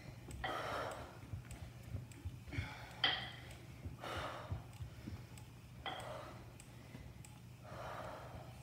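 A woman breathing hard from exertion while pedalling and pressing dumbbells, with a breathy exhalation every second or two over a steady low hum.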